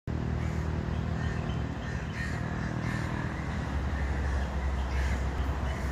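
Crows cawing a few times over a steady low rumble.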